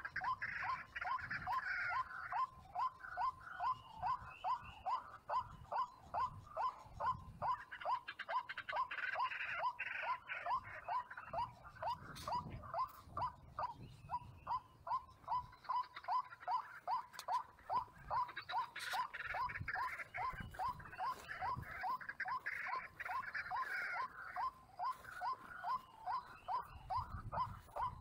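White-breasted waterhen calling: a long, steady series of short croaking notes repeated a few times each second.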